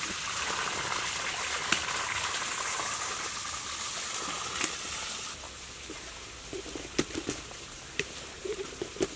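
Steady rushing hiss like running water, with a few sharp knocks as watermelons are caught and set down, the loudest two about seven and eight seconds in.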